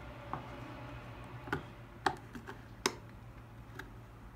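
Light metal clicks and taps from the chain-brake lever linkage and brake band of a Husqvarna 236e clutch cover being fitted by hand over a pin: a handful of short clicks, the two sharpest around the middle.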